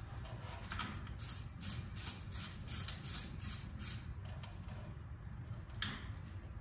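Socket wrench ratcheting in a run of short strokes, about three a second, as a spark plug is turned back into the engine, then one sharp metallic click near the end.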